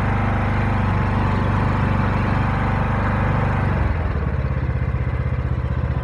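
Riding lawnmower engine running at full throttle, then dropping back to a lower, quieter speed about four seconds in.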